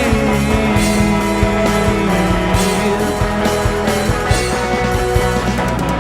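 Rock band playing an instrumental passage between sung lines: sustained and bending guitar notes over bass and steady drum hits, with no singing.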